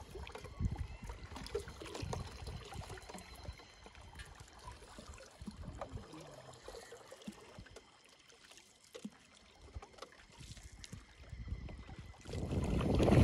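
Lake water sloshing and trickling against the hull of a small rowboat being paddled, with irregular low knocks from the paddle and boat. Near the end a much louder rushing noise builds up.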